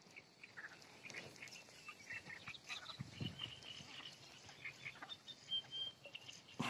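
Faint, scattered animal calls: short chirps and, about five and a half seconds in, a brief high whistle.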